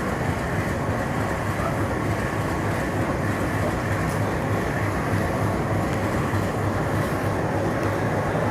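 Locomotive of a halted express train running steadily at standstill: a constant rumble with a low hum and a faint steady whine.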